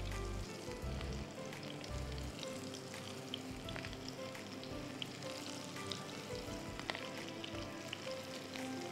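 Small methi (fenugreek) pakoras deep-frying in hot oil in a wok: a steady sizzle with scattered sharp pops and crackles.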